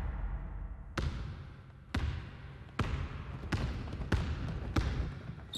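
A basketball dribbled on a wooden gym floor. The bounces are sharp single thuds that come faster: about one a second at first, then quicker toward the end.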